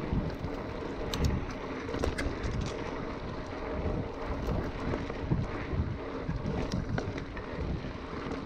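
Wind buffeting a GoPro's microphone while a mountain bike rides down a dirt singletrack, with a constant low rumble from the tyres and frame and scattered sharp clicks and rattles from the bike.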